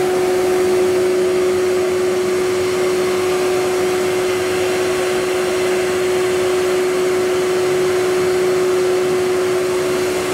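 Vacuum pump running steadily and smoothly: an even machine hum with one strong constant tone.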